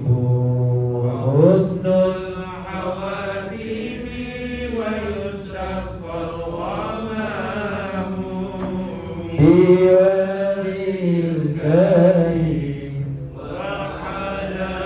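Male voices chanting an Islamic devotional recitation (salawat) to a slow melody, in long phrases with held, gliding notes.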